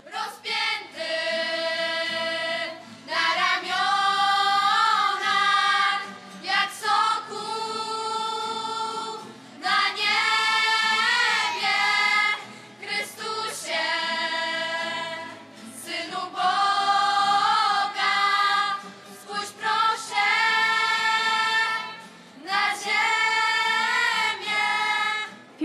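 Girls' choir singing in unison, phrase after phrase of a few seconds each, with short breaks between phrases.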